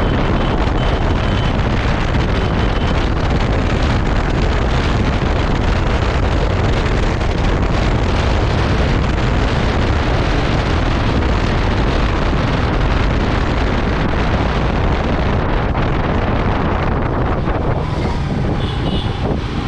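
Motorcycle riding at speed: steady wind noise buffeting the microphone, with engine and road noise beneath. Near the end the wind noise eases as the motorcycle slows.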